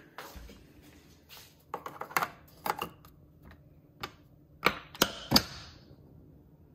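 Sharp plastic clicks and knocks with a little rustling, about seven in all and the loudest a trio near the middle: a K-Cup pod and a Keurig K-Mini Plus single-serve coffee maker being handled as the pod is readied for brewing.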